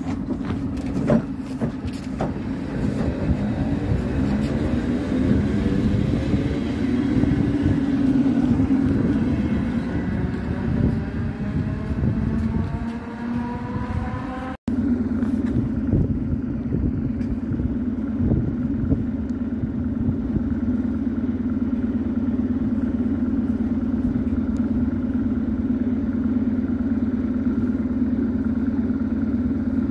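ER2T electric multiple unit: in the first half its traction motors whine in several tones that rise steadily in pitch as it pulls away. After a sudden break a little past halfway comes a steady drone from a standing ER2T's running equipment.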